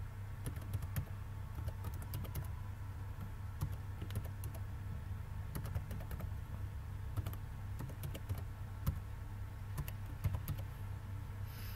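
Typing on a computer keyboard: an irregular run of key clicks over a steady low hum.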